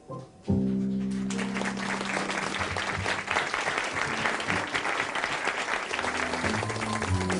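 A jazz trio's closing chord rings briefly, then a club audience applauds. About six seconds in, piano and bass start playing again under the applause.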